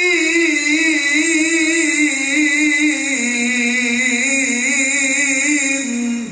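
A male qari's voice reciting the Quran in the melodic tilawah style into a microphone: one long melismatic phrase, held at first, then stepping down in pitch with a fast wavering ornament, and cut off sharply near the end.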